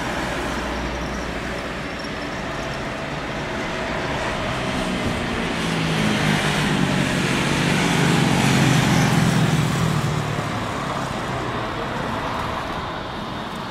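Jet engines of a Boeing 737 Classic on final approach, a rumble with a low hum that swells to its loudest about two-thirds of the way through as the airliner passes nearest, then fades.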